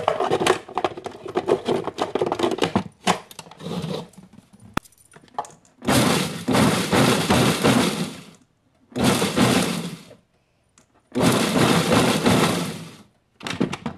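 Food processor pulsed three times, a couple of seconds, then about one second, then about two seconds, each burst starting and stopping sharply as it chops dry rolled oats and spices. Clicking and clattering before the first pulse.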